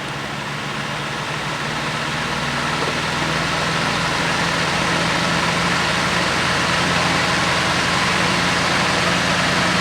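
Vintage Emerson 12-inch table fan with brass blades and a shaded pole motor, started on low speed and spinning up: a steady rush of air with a low motor hum, growing gradually louder as the blades come up to speed.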